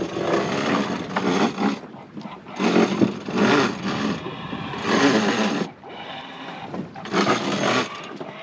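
Wind buffeting the microphone in irregular gusts of about a second each, with short lulls between them.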